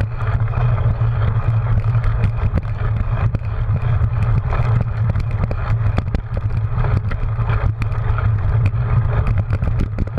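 Wind rumbling steadily on a GoPro's microphone while a cyclocross bike rides fast over grass, with frequent sharp clicks and rattles from the bike jolting over the bumpy ground.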